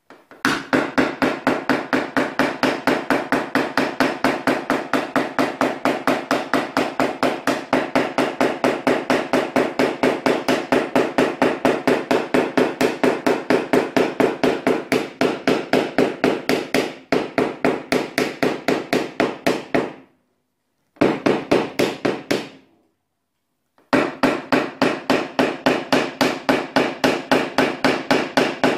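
A small hammer tapping rapidly and evenly on a white knockdown punch held against a Nissan Teana door's steel skin: paintless dent repair tapping down the high spots. The tapping stops at about twenty seconds, comes back briefly, pauses again and then resumes.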